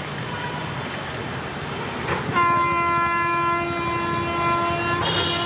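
Steady rushing rail noise of a train, then about two seconds in a locomotive's multi-tone air horn sounds one long, steady blast. Near the end a higher note joins the horn.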